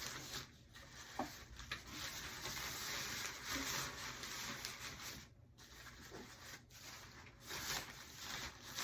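Uneven rustling and rubbing as a shirt and other order items are handled and packed into a mailer.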